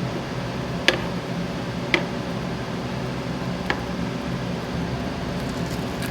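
Steady hum of a food stall's kitchen, with three sharp clinks: about a second in, at two seconds and just before four seconds.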